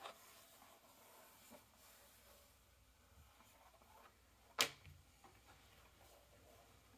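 Sheets of leather handled and shuffled on a desk: faint rustling and sliding, with one sharp tap a little past halfway.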